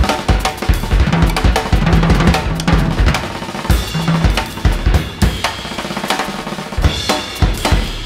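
A drum kit played busily up close, with frequent bass drum thumps, snare hits and cymbal crashes, over sustained low notes from the rest of the band.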